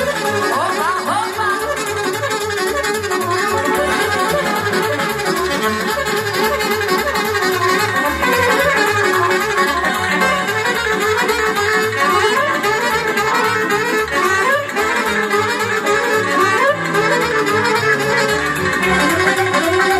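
Live party band music: a saxophone playing the melody over a keyboard backing with a steady, even bass beat.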